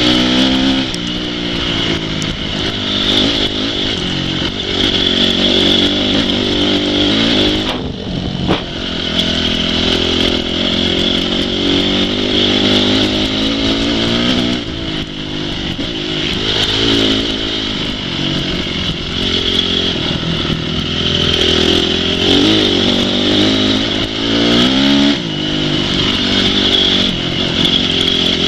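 Off-road motorcycle engines running hard, revving up and down again and again as the bikes ride.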